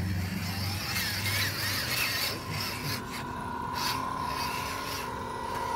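Small-scale RC crawler trucks' electric motors and gearboxes whining as they crawl over loose rocks, with rasping scrapes and clicks of tyres and chassis on stone. The whine holds one steady pitch and grows stronger about halfway through.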